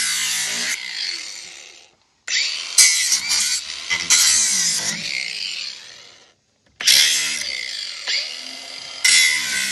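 Angle grinder cutting through steel crate brackets, run in three spells. Each spell starts suddenly, the pitch shifts as the disc bites, and each dies away as the grinder spins down.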